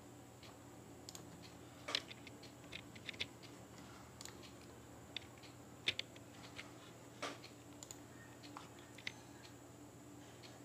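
Faint, irregular clicks and taps of a computer keyboard and mouse, about a dozen scattered over several seconds, the sharpest about two, six and seven seconds in. A faint steady electrical hum runs underneath.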